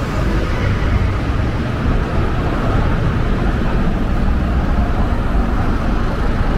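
Busy city street ambience: a steady rumble of road traffic under a general wash of street noise.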